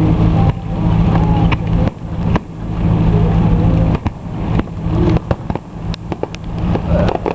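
Consumer fireworks going off: a string of sharp bangs and crackling pops, coming more often in the second half, over a steady low hum.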